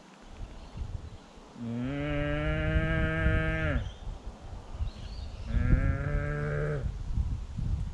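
Red deer roar call blown by a hunter, imitating a stag's roar twice: a first call of about two seconds that rises in pitch as it starts, then a shorter second call a little later.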